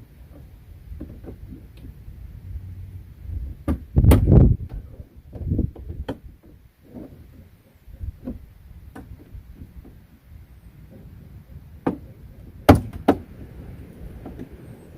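Knocks, thuds and sharp clicks of hands and a tool working on a pickup truck's door while it is taken apart. The loudest is a cluster of thuds about four seconds in, and two sharp clicks come near the end.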